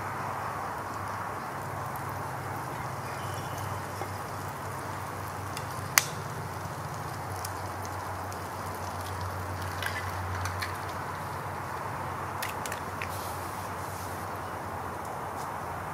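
Small wood fire burning under a grill with a frying pan on it, a steady hiss with scattered crackles, over a steady low hum. One sharp snap about six seconds in is the loudest sound, followed by a few lighter clicks around ten and thirteen seconds in as an egg is cracked into the pan.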